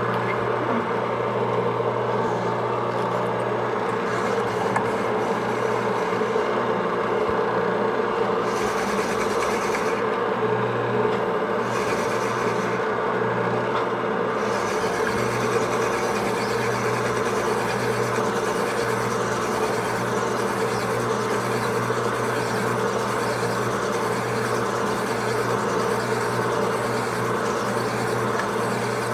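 Sunnen honing machine running steadily, its stones grinding inside the bore of a Suzuki TS 125 two-stroke cylinder as the cylinder is stroked in and out over the rotating mandrel.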